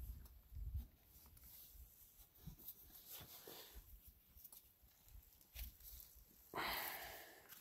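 Mostly quiet, with faint rubbing and low thumps; about six and a half seconds in, a Brown Swiss cow blows out one breathy exhale of about a second.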